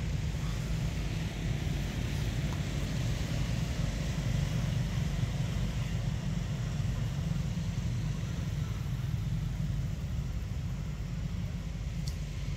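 Steady low rumble with an even hiss of outdoor background noise, and a faint click near the end.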